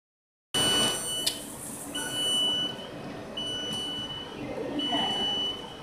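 Electronic buzzer on rubber extrusion and winding machinery beeping at a steady high pitch: four long beeps, each nearly a second, repeating about every one and a half seconds, over low machine noise.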